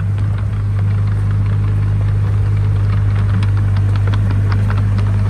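Engine of a work machine running steadily with a constant low hum, with scattered light clicks and rattles, while a gravel sub-base is worked.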